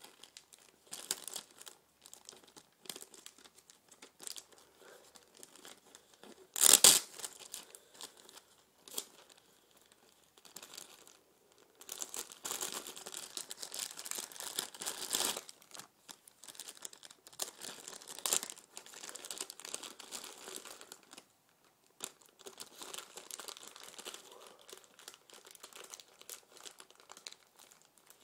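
Irregular rustling and crinkling close to the microphone, with scattered small clicks and a sharp knock about seven seconds in, as small parts and their packaging are handled.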